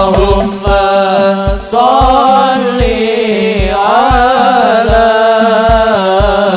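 Hadroh ensemble playing: a solo voice sings a long, wavering melismatic line in Arabic devotional style over hand-struck frame drums and a steady deep bass-drum beat, about two strokes a second.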